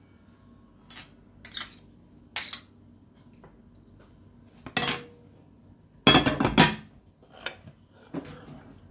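Metal serving ladle and spoon clinking and scraping against a ceramic baking dish while pasta is served into it: a series of short, separate knocks and scrapes, the loudest cluster about six seconds in.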